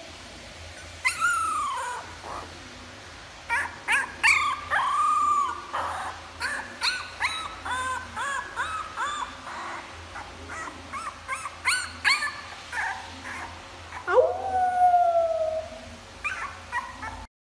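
A very young puppy howling in small attempts. A long wavering howl comes about a second in and another around four seconds, then a run of short yips and squeaks, and a longer howl near the end.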